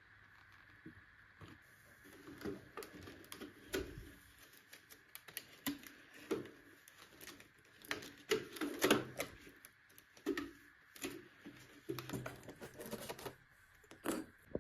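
Irregular light clicks, taps and rustling of small objects being handled, with a few louder knocks around the middle, over a faint steady hum.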